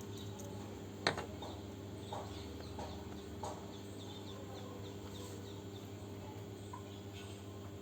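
A steady low electrical hum, with a single sharp click about a second in and faint short chirping calls from birds in the background through the middle.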